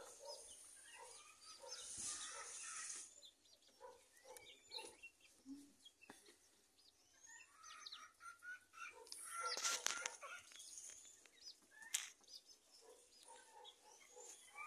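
Faint sounds of a mixed flock of chickens, bantams and pigeons feeding on scattered grain: many short soft clucks and cheeps, scattered pecking clicks, and a brief flurry of wings about ten seconds in.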